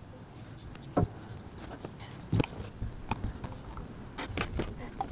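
Knocks and clunks of a wooden outdoor couch frame being handled and fitted together, with two louder thumps about one and two and a half seconds in and lighter clicks after.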